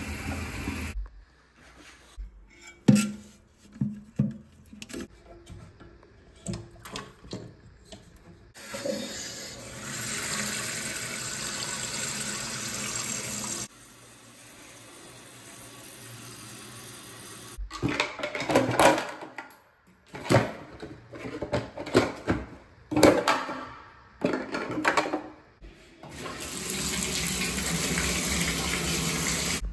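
Toilet tank refilling through its fill valve, stopping about a second in. Then scattered knocks and clatters, with two spells of steady running water from a tap or shower, the first about five seconds long and the second near the end.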